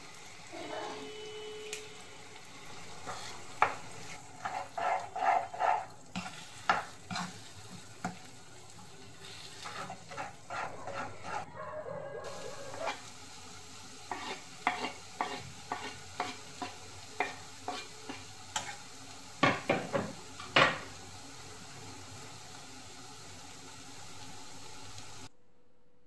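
Wooden spatula stirring and scraping egg bhurji (eggs scrambled into an onion-tomato masala) in a non-stick kadai, over a steady frying sizzle. The taps and scrapes come in quick clusters and are loudest near the end.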